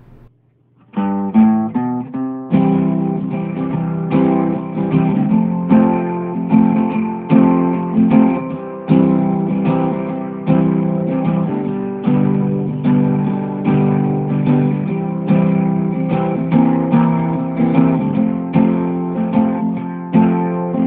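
Acoustic guitar music: a quick run of plucked notes about a second in, then steady strummed chords.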